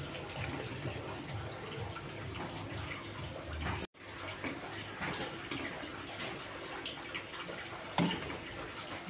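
Chicken cooking in spiced broth in an aluminium pot on the stove, the liquid bubbling steadily with small pops. The sound drops out for an instant about four seconds in, and there is a sharper knock about eight seconds in.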